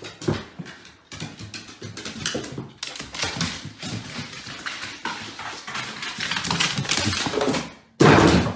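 A dog's claws clicking and paws knocking on hardwood stairs as it goes down, in quick, irregular steps. Near the end there is a sudden loud burst of noise.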